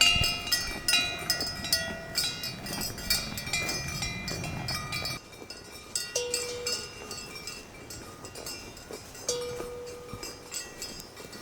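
Metal cowbells clanking and ringing irregularly, busy at first and thinning out after about five seconds.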